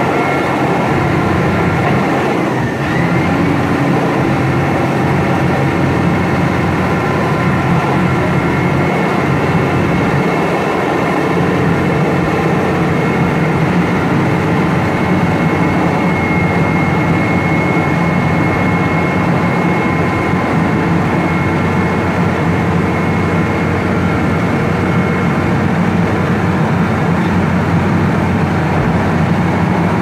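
Vögele Super 1800-2 crawler asphalt paver running, its diesel engine giving a steady, even drone with a few faint steady whining tones over it.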